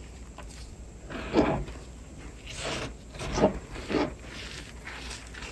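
Hands squeezing and crumbling crispy reformed chalk and pasted chalk into powder: a handful of dry crunches, the loudest about one and a half and three and a half seconds in, with softer rubbing of powder between them.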